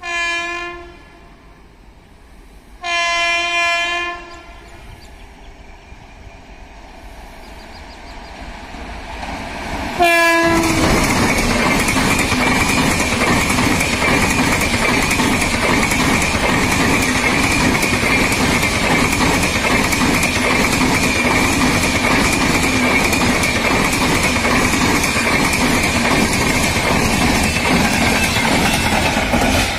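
WAP7 electric locomotive horn sounding twice as the train approaches; a third blast about ten seconds in drops in pitch as the locomotive passes. Then the LHB coaches of the express run past at speed with loud, steady rail noise and rhythmic clickety-clack of wheels over rail joints.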